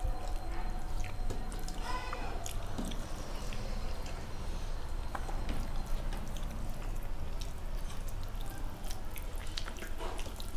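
Fingers mixing and squeezing soft, wet, starchy boiled rice (fena bhat) on plastic plates: many small wet squishes and drip-like clicks.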